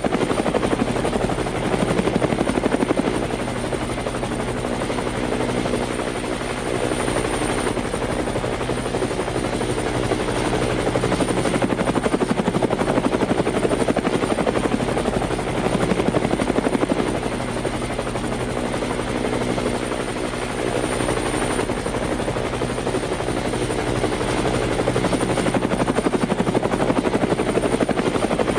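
Helicopter in flight, its rotor chop and engine making a continuous steady drone that swells and eases slowly every several seconds.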